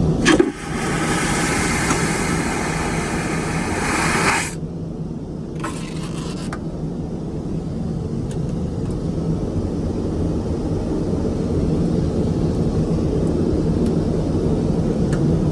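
Aircraft vacuum toilet flushing: a click, then a loud suction hiss for about four seconds that cuts off suddenly, followed a second later by a brief fainter hiss. The steady low drone of the airliner cabin in flight runs underneath.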